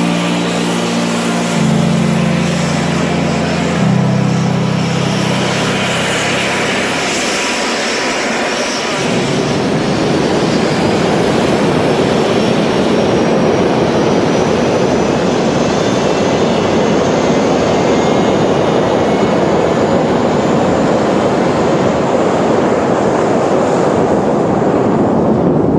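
A pair of A-10 Thunderbolt II jets' General Electric TF34 turbofans at takeoff power: a loud steady rush with a high whine that slowly rises in pitch. For the first nine seconds or so, music with held chords plays over the engines, then fades out.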